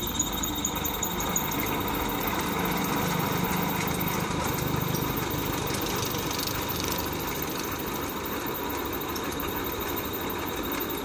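Electric motor running under heavy load, driving a gearbox and belt-and-pulley train to an alternator: a steady mechanical running noise with a thin high whine. The gearing is too large for the small motor, and the drive belt is slipping.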